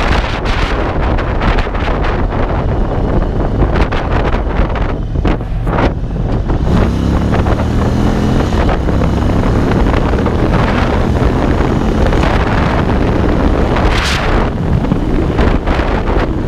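Cruiser motorcycle's V-twin engine pulling on the move under heavy wind buffeting on the microphone. The engine note rises for a couple of seconds about seven seconds in as the bike accelerates, and a sharp gust of wind comes near the end.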